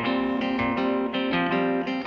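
Background music of plucked and strummed guitar, a steady run of changing notes.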